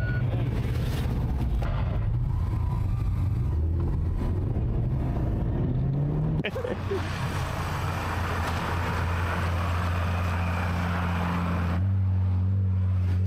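Car engine running steadily; its pitch rises briefly about six seconds in. A rushing hiss rides over the engine for several seconds in the second half.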